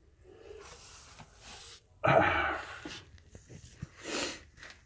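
A man's sudden short vocal outburst about two seconds in, of the kind made by a sneeze, over faint handling noise. A short breathy hiss follows near the end.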